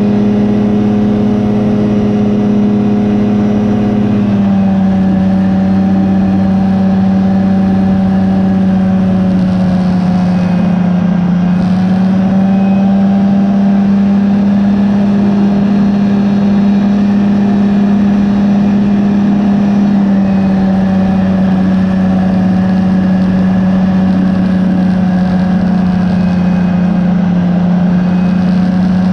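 Rotax 503 DCDI two-cylinder two-stroke engine of a Phantom X1 ultralight running steadily at power. Its pitch dips slightly about four seconds in and then holds even.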